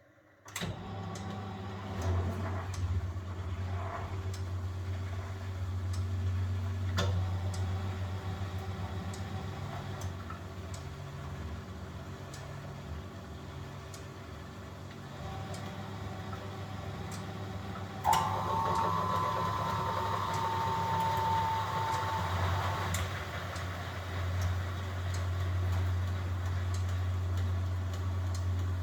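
1971 Constructa Garant 491 washing machine starting its drum motor about half a second in and turning the drum with a steady hum and the slosh of the wash load, during a boil wash. Faint clicks tick along at about one a second, and a higher steady tone joins for about five seconds past the middle.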